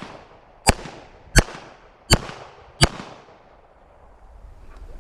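Handgun firing four shots in quick succession, roughly one every 0.7 seconds, each with a short echo trailing off.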